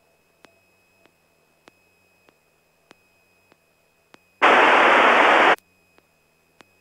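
A burst of loud radio static on the aircraft's ATC radio feed, lasting about a second from about four and a half seconds in and cutting off suddenly: a transmission or squelch break with no voice. Around it, faint regular clicks about every 0.6 s.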